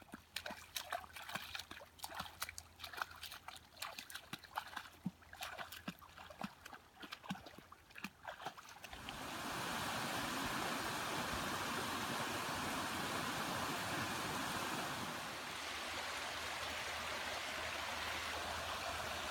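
Running water: a trickle with many small irregular drips and splashes, then, from about nine seconds in, a steady even rush like a small stream or cascade.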